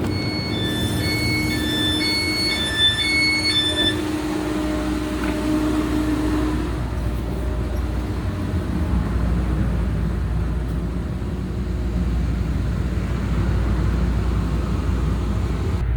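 Train running with a steady low rumble. For the first few seconds an electronic two-tone chime alternates between a higher and a lower note about four times, then stops.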